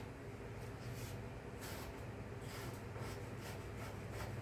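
Quiet, intermittent scraping: a spoon working through the congealed grease on top of saved roast-chicken broth. A steady low hum runs underneath.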